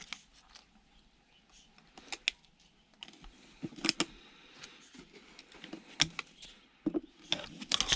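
Scattered sharp clicks, knocks and light scraping from hands working at a screwed-shut, taped wooden box, trying to get it open.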